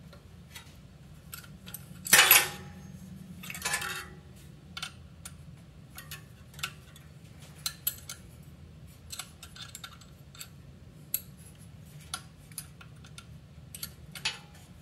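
Open-end wrench and steel bolts clinking against the mounting hardware of a motorized bicycle's rear sprocket as the bolts are tightened: scattered light metallic clicks, with two longer, louder metallic rattles about two seconds in and just before four seconds.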